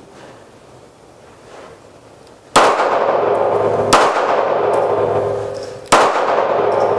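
Handgun firing three shots, the first about two and a half seconds in and the others roughly a second and a half and two seconds apart, each followed by a long echoing decay.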